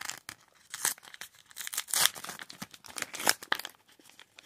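A Mini Brands printed wrapper pouch being torn open and crinkled by hand: irregular crackling, loudest about two seconds in and again a little after three seconds.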